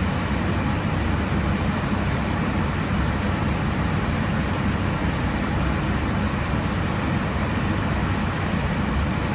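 Steady cabin noise of an airliner in cruise flight: an even low rumble with a rushing hiss above it.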